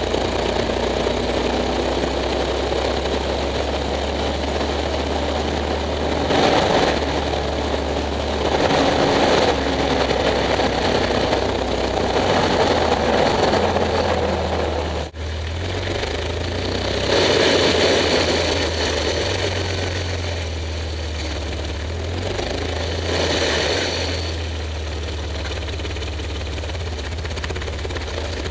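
Drivetrain and engine running noise of a 2003 Jeep Wrangler with an NV3550 five-speed and NP231 transfer case, picked up under the vehicle beside the driveshaft: a steady low hum with swells of louder running noise every few seconds, cutting out for a moment about halfway. It is the noise the owner is chasing, a clanking and clicking that he guesses comes from the transmission, though it shifts fine.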